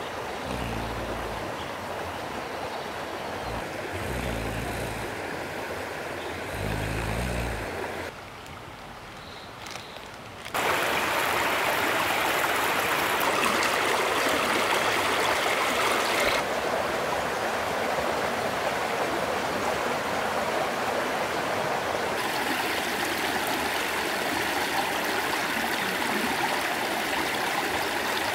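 Shallow rocky stream flowing and gurgling over stones, a steady rush of water that jumps louder about ten seconds in. In the first several seconds there are three short, low humming pulses about two and a half seconds apart.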